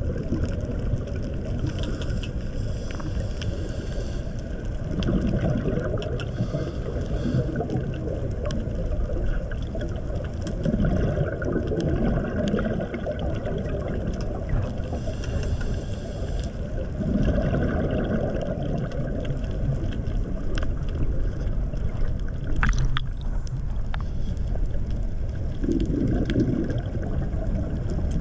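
Muffled underwater rumble with a swell of bubbling every five or six seconds, typical of a scuba diver's exhaled bubbles heard through a camera's waterproof housing, with faint scattered clicks.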